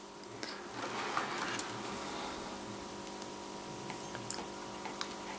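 TT-scale Piko class 106 diesel model locomotive running on the layout: a faint steady electric motor hum, with a few light clicks of the wheels over the track.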